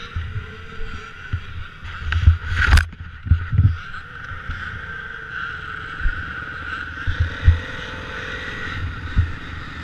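Kawasaki motocross bike's engine running steadily at low speed and idle, heard from a camera mounted on the bike, with repeated dull low thumps and one sharp click a little under three seconds in.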